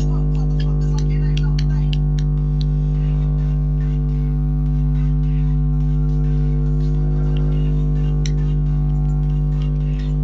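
Music with a steady droning chord held throughout, with scattered light clicks over it, most of them in the first few seconds.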